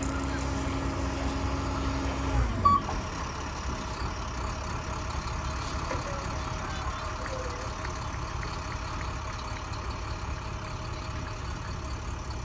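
Flatbed tow truck's engine and hydraulics running under load with a steady hum as a car is pulled up the tilted bed. The hum cuts off about two and a half seconds in with a single clunk, and the truck's engine goes on idling.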